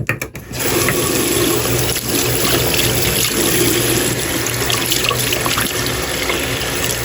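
Water tap running full into a sink, a steady rush that starts about half a second in after a few short knocks.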